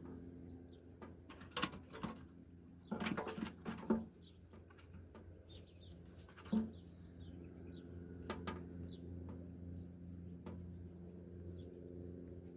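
Small birds chirping faintly, broken by several sharp clicks and knocks, the loudest in a cluster a few seconds in, over a steady low hum.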